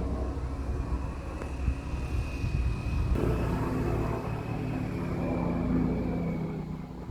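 Bell 429 helicopter running: a steady low rumble with a thin high whine over it, dipping slightly in level near the end.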